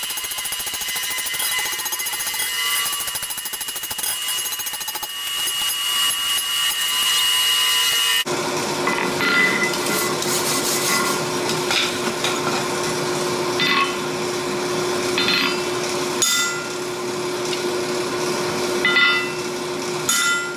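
Metalworking shop noise: a power tool runs with a steady high whine for about eight seconds. After an abrupt cut comes a steady low hum with scattered sharp metallic strikes.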